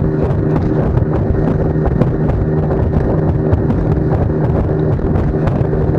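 New bass boat's outboard motor running steadily at constant speed during its break-in period, with wind buffeting the microphone.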